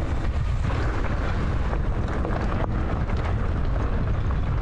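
Steady rumble of wind buffeting the microphone while riding a rocky enduro trail, with scattered small clicks and knocks.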